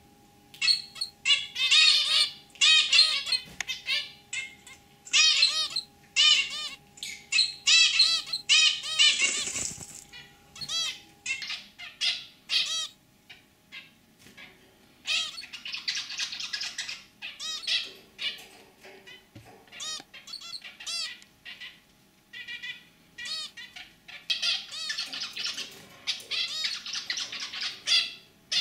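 Zebra finches calling: a fast run of short repeated calls, with buzzy stretches about halfway through and again near the end.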